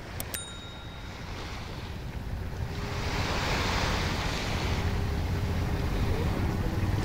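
Sea waves washing onto the beach, the surf swelling louder about three seconds in, over a low wind rumble on the microphone. A short ringing click sounds just after the start.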